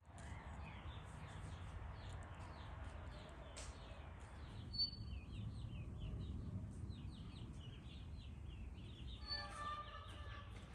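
Small birds chirping in quick, repeated short notes over a low, steady background rumble. Music comes in near the end.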